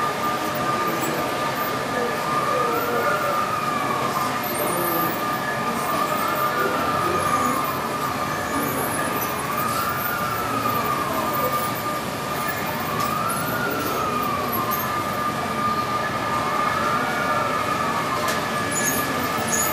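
A siren wailing with a slow rise and fall in pitch that repeats about every three and a half seconds, over a steady background hum.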